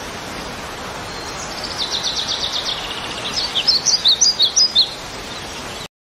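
Water rushing steadily over a rocky stream, with a small songbird singing over it. About a second and a half in comes a fast trill, then a run of quick, sharp chirps, the loudest sounds here, that stop about a second before the end.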